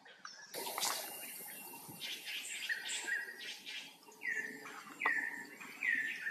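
A bird calling in the second half, three short calls each falling in pitch, repeated a little under a second apart. Before them comes a few seconds of rustling.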